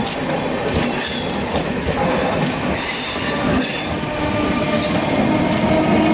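Hyderabad MMTS electric multiple-unit suburban train running past at speed: a continuous loud rush and clatter of steel wheels on the rails, with faint high wheel squeal.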